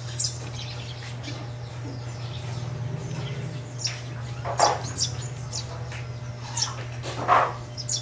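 Sparrows chirping: scattered short, high chirps, with two louder calls about halfway through and near the end, over a steady low hum.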